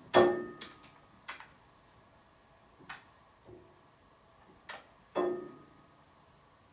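Wooden knocks and clicks of Steinway grand piano keys being pressed down onto the front-rail punchings and let back up, with the action moving, as key dip is checked. One loud knock comes just after the start, several lighter clicks follow, and a pair of knocks comes near the end.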